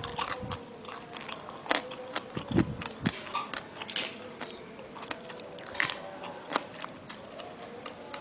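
A person eating fried chicken: irregular crunchy bites and chewing with sharp clicks, over a faint steady hum.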